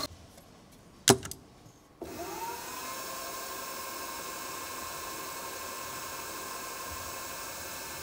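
A single sharp clack about a second in, then the drill-mill's electric motor starts at about two seconds, its whine rising in pitch as it spins up and settling into steady running.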